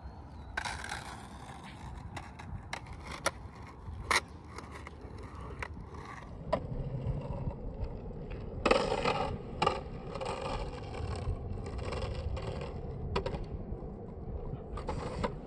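Skateboard wheels rolling and sliding sideways on a hard painted court surface as the board pivots off the nose and the wheels are dragged around in an arc, with occasional sharp clicks. The scraping grows louder about nine seconds in.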